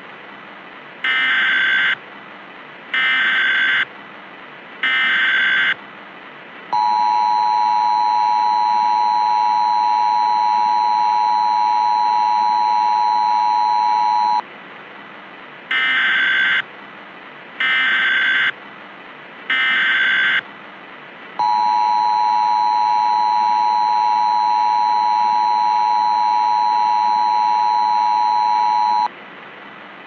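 Emergency Alert System alert: three short screeching SAME data bursts, each about a second long, then the two-tone EAS attention signal held for about seven and a half seconds. The whole sequence plays twice over a steady hiss.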